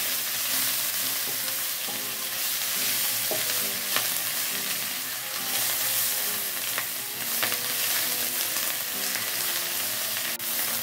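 Melinjo leaves and spice paste sizzling in hot oil in a wok while being stirred and tossed with a wooden spatula, sautéed until wilted. A few light taps of the spatula against the pan stand out, around four and seven seconds in.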